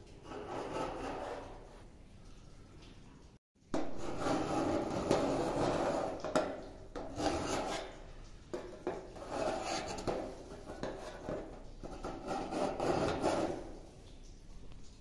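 A steel scriber scratching marking lines into a steel sheet in repeated scraping strokes, roughly one a second.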